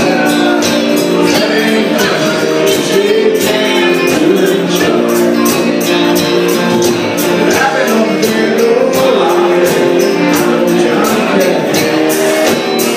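Live country band playing an instrumental intro: drums keep a steady beat under long held melody notes and guitars, heard from the audience in a large hall.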